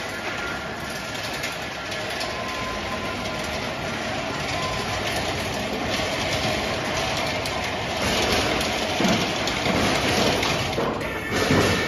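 Wooden pallet assembly line's chain conveyors and stacker running with a steady mechanical clatter. It grows louder in the second half, with a few louder knocks as a finished wooden pallet is fed into the stacker.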